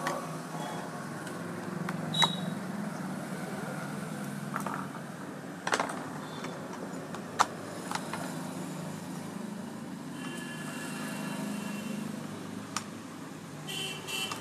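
Steady low background hum with a few sharp clicks and taps scattered through it, and a high beeping tone that comes in near the end.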